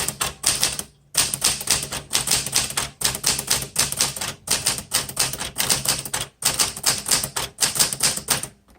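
1960s Smith Corona Galaxie all-manual typewriter being typed on: a rapid run of sharp keystrokes as the type bars strike the paper, broken by brief pauses about a second in and again just past six seconds.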